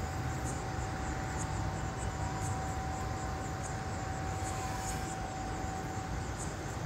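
Steady low rumbling background noise with a faint, thin steady whine that stops about six seconds in.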